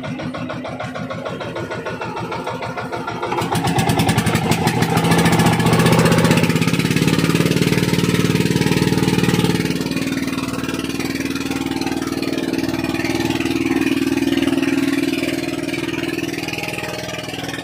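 Outrigger fishing boat's engine running, speeding up with a rise in pitch and loudness about three and a half seconds in, holding there, then easing back about ten seconds in; a smaller rise and fall follows near the end.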